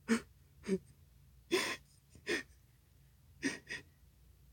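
A person's short breathy gasps, about six of them at uneven intervals.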